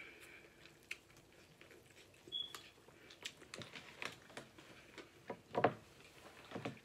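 Faint eating sounds of boiled corn on the cob being bitten and chewed: scattered small clicks and wet smacks, with one louder click about five and a half seconds in.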